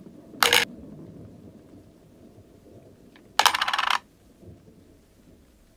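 Small brass blowtorch parts dropped one at a time into a clear jar, clinking twice: a short clink about half a second in, then a longer rattling clatter about three and a half seconds in as a part bounces and settles.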